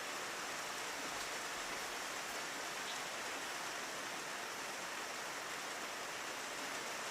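Steady rain falling on a window: an even hiss with a few faint ticks of single drops.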